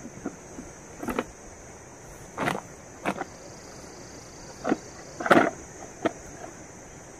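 Irregular rustles and soft knocks, about six in all, the loudest a little past halfway, over a steady high-pitched hiss.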